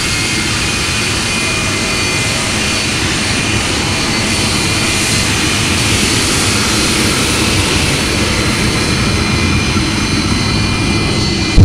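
Jet engine of a jet-powered pickup truck running at a steady whine, with several high steady tones over a deep rush, growing a little louder as the truck moves. A single sharp, loud pop comes right at the end.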